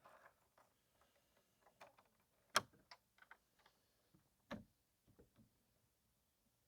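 Metal gate latch being worked by hand: a few sharp clicks and taps, the loudest about two and a half seconds in and another a couple of seconds later, with fainter ticks between.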